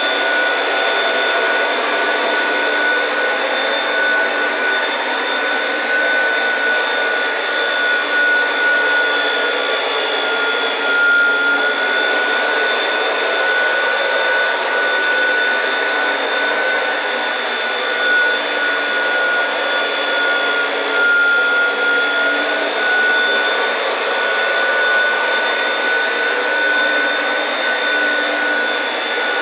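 Oreck vacuum cleaner running steadily on carpet, its motor noise carrying a high whine that dips slightly in pitch a couple of times.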